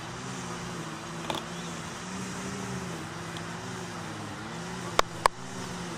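String trimmer engine running steadily, its pitch rising and falling about once a second. About five seconds in, two sharp thuds a quarter-second apart, from a football being struck.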